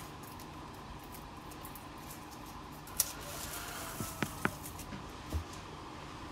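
Faint handling sounds as masking tape and Blu Tack are peeled off a painted plastic model aircraft: a short light crackling rustle about three seconds in, then two small sharp clicks and a soft tap a little later.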